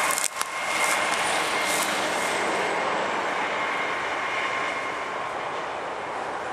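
Loaded coal freight train rolling on the rails: a dense, steady rush of wheel and rail noise with thin steady high tones, fading slowly after about three seconds.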